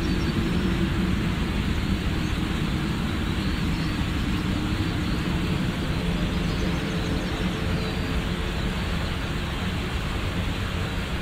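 Airbus A320-family airliner's jet engines running at low thrust: a steady rumble and hiss with a faint hum, easing off slightly toward the end.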